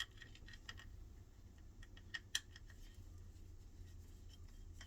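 Faint, scattered light clicks and ticks of small screws and the washing machine's drain-pump mount being handled, the sharpest a little past two seconds in, over a faint steady low hum.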